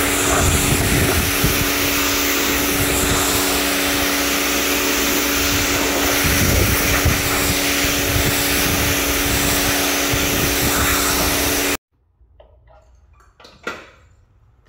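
Pressure washer running, its water jet spraying a soaked car carpet over a steady machine hum. It stops abruptly about twelve seconds in, leaving quiet room sound with a few faint clicks.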